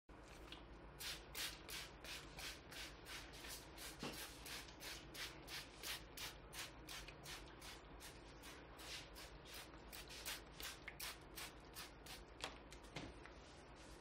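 Quick rhythmic swishing strokes on a man's hair during a barber's head massage, about three a second, stopping shortly before the end.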